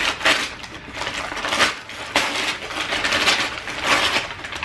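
Plastic bags used as gift wrapping crinkling and rustling as they are pulled and torn open, in a string of noisy bursts.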